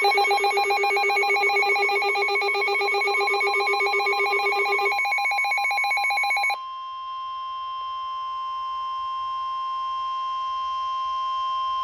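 Emergency alert tones. A harsh, rapidly pulsing multi-pitch alarm sounds for about six and a half seconds and cuts off abruptly. It gives way to a steady single-pitch warning tone: the weather-radio alert tone that signals a warning broadcast is about to follow.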